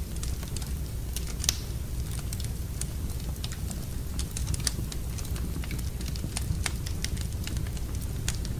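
Wood fire burning in a fireplace, crackling with irregular sharp pops over a steady low rumble; the loudest pop comes about one and a half seconds in.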